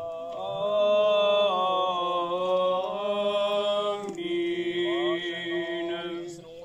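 Unaccompanied voices singing a Serbian Orthodox liturgical chant, the sung response after the priest's doxology at a memorial service, in long held notes whose pitch steps down a couple of times.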